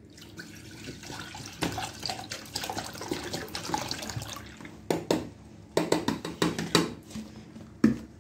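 Milk pouring from a plastic bottle into a stainless-steel saucepan, a steady splashing gush for about four and a half seconds. Then a few sharp knocks and clinks in the second half.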